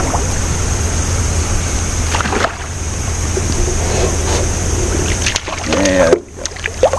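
A small crappie being reeled in on a light spinning rod and reel, splashing at the water's surface near the end as it is brought to the boat, over a steady low hum. A short voice sound comes shortly before the splashing.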